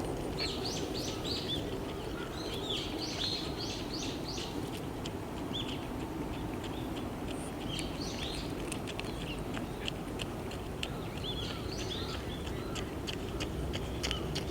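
Small birds chirping in several quick runs of short high calls, over a steady low background rumble.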